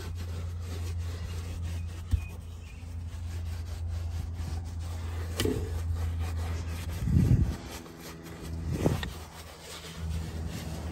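Detailing brush scrubbing leather cleaner into a car's leather rear seat, a rough rubbing and scratching, over a steady low hum. A few dull bumps come about five, seven and nine seconds in.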